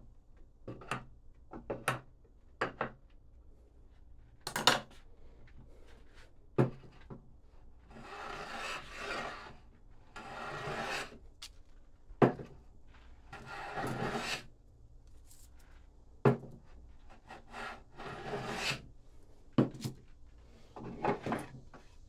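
Hand tools working wood: a series of sharp knocks and taps, and four rasping strokes of about a second each across the wood.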